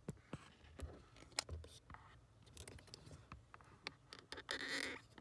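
Handling noise from wiring and plastic parts being moved about: scattered clicks and taps, then a rustling scrape lasting about half a second near the end.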